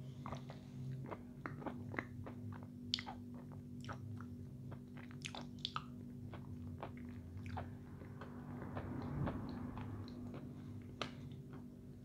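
A woman chewing crunchy food with her mouth closed, close to the microphone: irregular crisp crunching and clicking as she bites and grinds, over a faint steady low hum.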